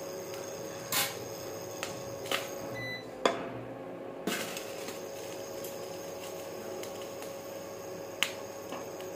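Induction cooktop running with a steady hum while it heats an aluminium kadai of mustard oil, with a few short sharp clicks scattered through, the loudest about three seconds in.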